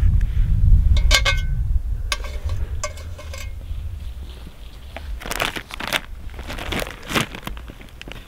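Crinkling and rustling of food being handled, mostly about five to seven seconds in, with a few light clinks, two of them ringing briefly, near the start. A low wind rumble on the microphone runs through the first two seconds.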